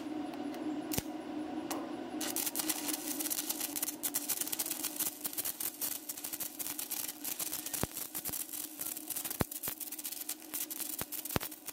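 Wire-feed (MIG) welding arc crackling and sizzling steadily as a bead is run on rusty steel, starting about two seconds in, over a steady low hum.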